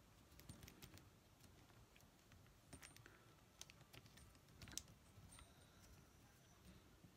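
Near silence, broken by a few faint, scattered clicks of small RC truck parts being handled and fitted by hand at the end of the axle.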